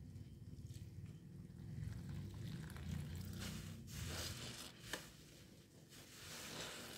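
Hands squeezing large foam sponges soaked in a sudsy soap mix: wet squishing and hissing suds in a few surges, strongest about halfway through and again near the end, with one sharp click just before the fifth second.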